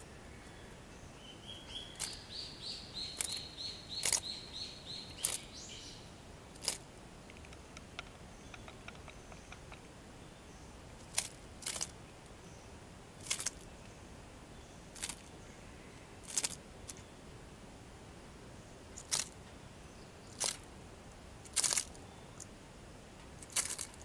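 A cicada caught in a Japanese skink's jaws gives a short, pulsing, high-pitched buzz that steps upward, lasting a few seconds. Later come about a dozen sharp clicks spaced a second or two apart.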